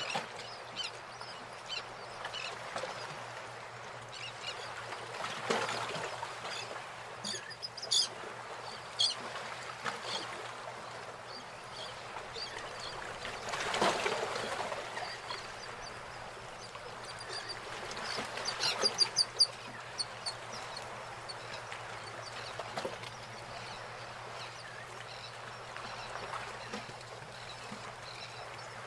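Nature ambience of birds calling over a steady background hiss: scattered high chirps and quick trills, with a few louder, fuller calls now and then.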